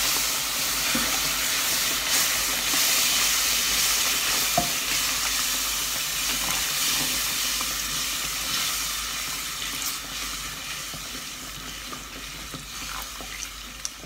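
Hot sugar syrup poured into flour fried in ghee and oil, sizzling loudly as it hits the hot fat, while a wooden spatula stirs the pot. The sizzle slowly dies down toward the end as the fat cools under the added liquid.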